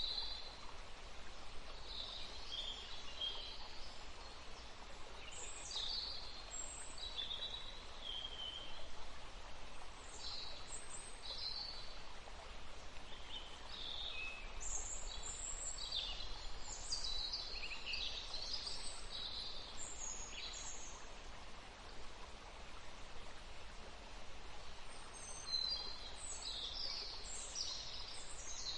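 Several small songbirds chirping and trilling in a forest chorus, with short high calls overlapping, densest around the middle and near the end, over a steady faint background hiss.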